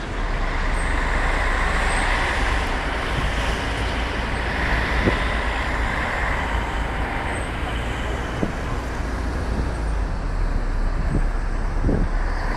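Steady road and engine rumble of a moving vehicle, with a low drone throughout and the noise swelling briefly about two and five seconds in.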